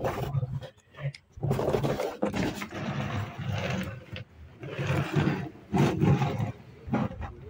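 Plastic toy vehicles pushed by hand across a wooden tabletop, their wheels rumbling in a series of short, uneven pushes.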